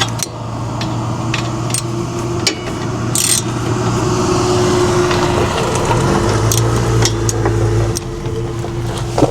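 Metal hand tools clicking and scraping as a Torx bit is worked against the wheel hub's bolts, with a short scrape about three seconds in. A steady low hum runs underneath.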